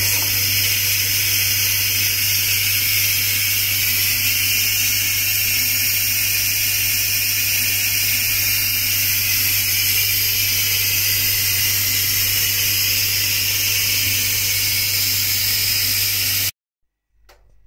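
Electric pressure cooker's steam-release valve venting in a loud, steady hiss: a quick release of pressure after 15 minutes of pressure cooking. The hiss stops abruptly near the end.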